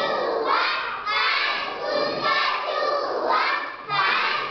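A classroom full of young children shouting and chanting together, many voices at once.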